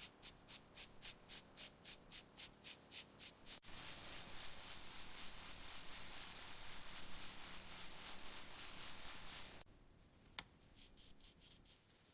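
Rhythmic back-and-forth sanding strokes on a car panel, about four to five a second, that stop abruptly after a few seconds. A steady high spray hiss follows for about six seconds, as paint is sprayed. Then comes one sharp click and a few lighter strokes.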